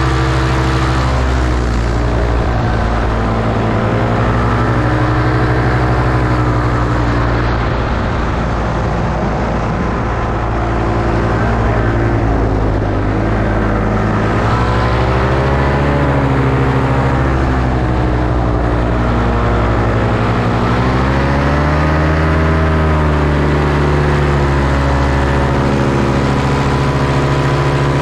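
Paramotor engine and propeller running steadily and loudly, its pitch dipping and rising again twice.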